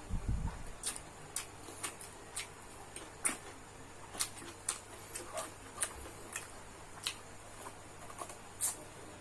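Close-miked eating sounds of a person chewing fried rice: irregular sharp, wet mouth clicks and smacks, about one or two a second.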